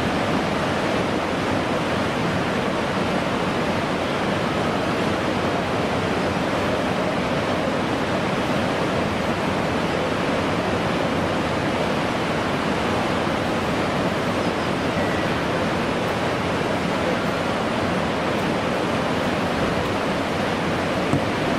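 Whitewater rapids of a slalom course rushing steadily, an even, unbroken noise of churning water.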